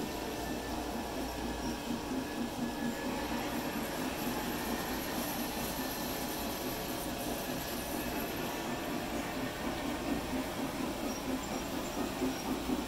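G-scale model train running on its track: a steady sound of wheels rolling on the rails with a fast, uneven flutter.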